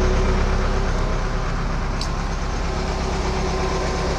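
A steady mechanical drone with a constant low hum and one held tone, like a motor or engine running at an even speed.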